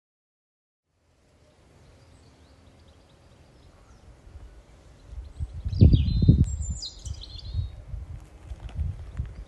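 Outdoor garden ambience: a small bird chirps a few quick notes midway, over low irregular buffeting on the microphone that grows louder and is the loudest sound from about halfway on.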